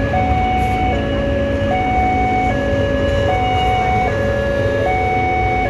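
Railway level-crossing warning alarm sounding a two-tone electronic chime that alternates high and low about every 0.8 seconds, signalling that the crossing is closed for a train. A low rumble runs beneath it.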